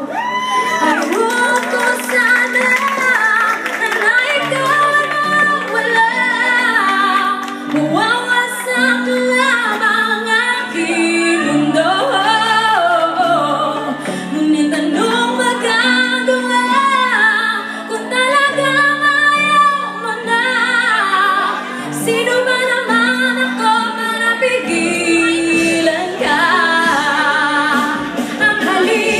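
A woman singing into a microphone over instrumental accompaniment, holding long notes with vibrato over steady held chords.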